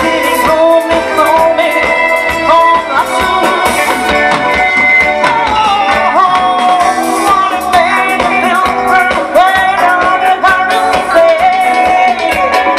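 Live band music with a singer over a steady drum beat.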